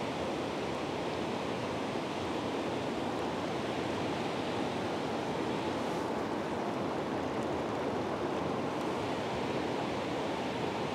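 Steady rushing of a flowing river, an even wash of water noise that does not change.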